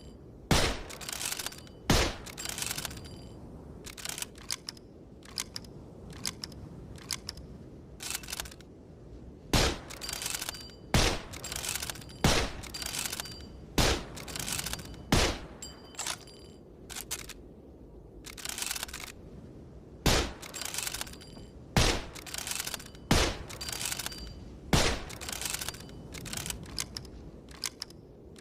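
Lee-Enfield bolt-action rifle sounds: a string of sharp cracks and metallic clicks. About a dozen loud ones come one to several seconds apart, each with quicker, smaller clicks around it.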